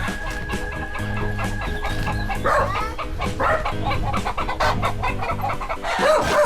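Chickens clucking over background music with a steady beat and bass line; the clucks come thick from about two and a half seconds in.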